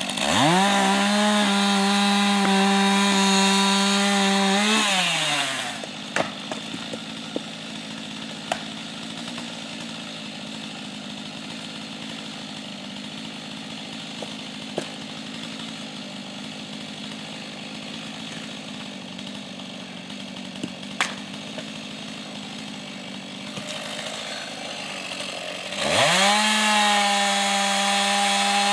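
Two-stroke chainsaw revving up to full throttle and cutting birch logs for about five seconds, then dropping back to idle. While it idles, a few sharp knocks come from an axe splitting firewood. Near the end the saw revs up and cuts again.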